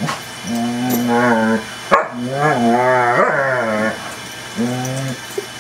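Adult German Shepherd's deep, drawn-out play vocalizations: three long calls that rise and fall in pitch, with a sharp click about two seconds in. This is play-fighting noise, not aggression.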